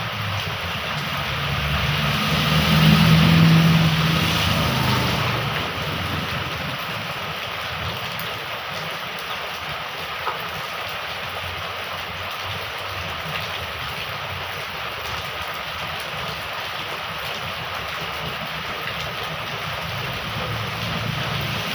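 Heavy rain pouring steadily. A motor vehicle passes close by, its engine swelling and fading over a few seconds near the start.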